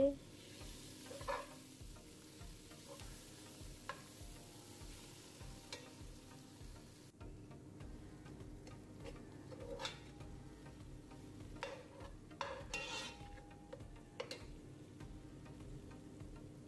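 Metal spoon stirring shallots, aromatics and tom yum paste frying in oil in a non-stick pot, with a light sizzle and occasional scrapes and knocks of the spoon against the pan. The sizzle fades about seven seconds in.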